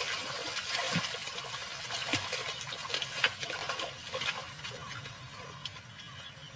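African buffalo and lionesses running through shallow marsh water and grass: a dense rush of splashing with scattered sharp splashes and knocks, fading toward the end.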